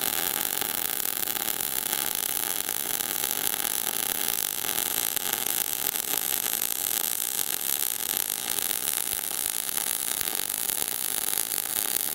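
MIG welding arc in globular transfer, 0.030-inch wire at 22 volts and 420 inches a minute wire feed under 75% argon / 25% CO2: a steady, dense crackling hiss. It is not as crisp as the bacon-frying sound of short-circuit transfer, and spatter is being thrown.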